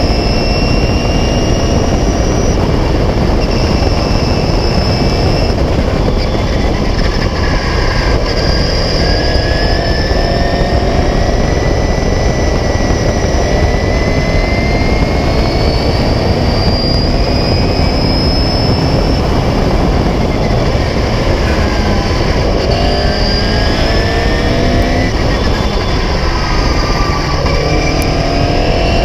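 Open-cockpit 1976 Beagle Mk4 clubmans racing car's engine running hard at racing speed, heard onboard under a steady rush of wind. The engine pitch climbs slowly through the middle, then rises in several short steps near the end as it pulls through the gears.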